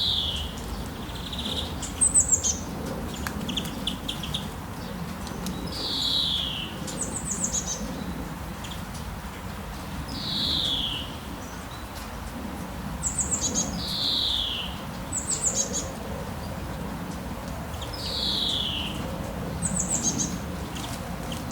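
Birds calling: a clear whistled note sliding down in pitch, repeated about every four seconds, alternating with short, high, quick-fire falling chirps, over a low, steady background noise.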